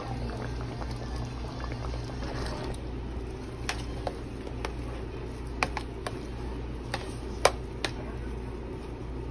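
Short ribs simmering in gravy in a pot, bubbling for the first few seconds. Then a spoon stirring thick mashed potatoes in a stainless steel pot, with a series of sharp clinks as it knocks against the pot's side.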